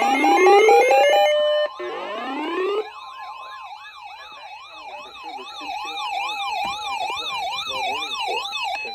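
Electronic siren: two rising sweeps that climb and hold briefly, then a quick up-and-down wail at about two cycles a second over a steady tone. The wail is quieter than the opening sweeps.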